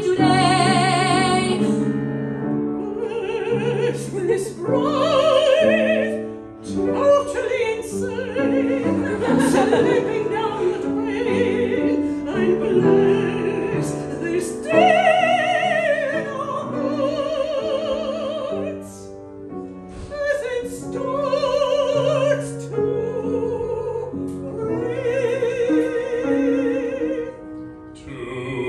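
Women singing a musical-theatre number with piano accompaniment: an operatic soprano line with wide vibrato alternates with quick, rapid-fire patter singing.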